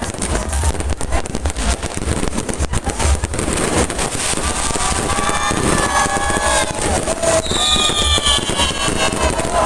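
Fireworks display: rapid, nonstop bangs and crackles with deep booms. From about halfway through, whistling tones slide down in pitch over the bangs.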